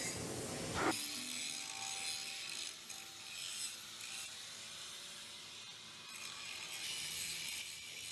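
Faint factory work noise: a steady hiss with scraping and rubbing, and a single knock about a second in.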